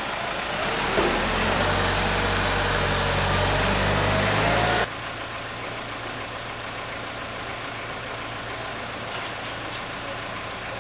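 Engine of a garlic and onion collector machine running steadily with a low hum. About five seconds in the sound drops abruptly to a quieter, steady machine noise.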